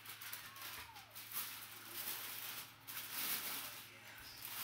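Tissue paper rustling and crinkling in a cardboard shoebox as it is handled and pulled back from a pair of sneakers, in uneven swells, loudest about a second and a half in and again past three seconds. A low steady hum runs underneath.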